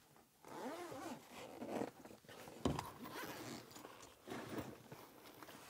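Rustling and handling of gear in a pickup truck's bed as a hunter gets his bow out, with one sharp click about two and a half seconds in.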